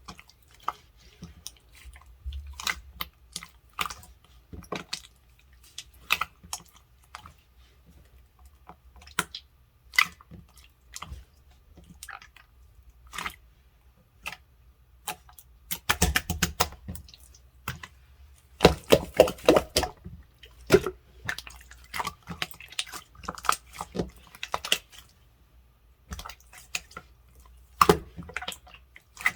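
Firm gold slime being pressed and poked by hand, making irregular sharp clicks and small pops, with quick runs of clicks a little past the middle.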